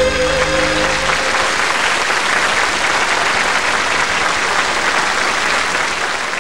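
A large audience applauding, with the last held chord of the song ringing under it and stopping about a second in.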